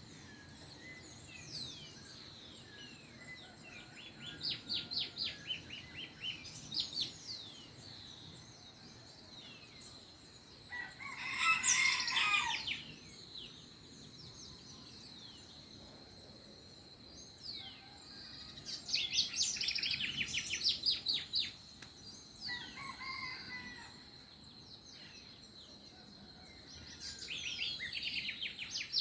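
Farm dawn chorus: songbirds chirping and singing fast trills throughout, with a rooster crowing about eleven seconds in, the loudest sound, and more faintly again about twenty-two seconds in.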